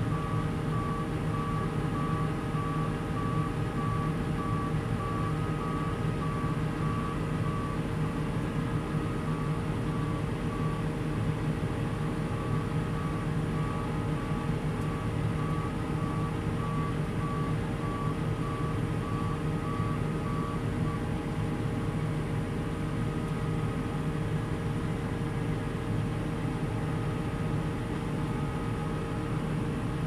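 Case IH 5140 Axial-Flow combine running steadily under load while its unloading auger pours rapeseed into a trailer. An electronic warning beeper sounds a regular series of short, even beeps; they pause briefly about a third of the way in and stop about two-thirds of the way in.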